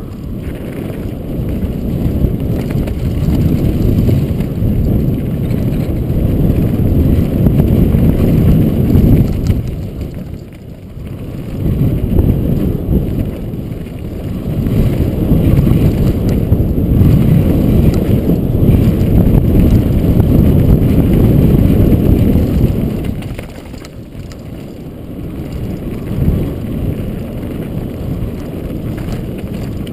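Wind buffeting a helmet-mounted camera's microphone together with the rumble and rattle of a downhill mountain bike running fast over a rocky dirt trail. The noise is loud and low, easing briefly twice, about ten seconds in and again about twenty-three seconds in.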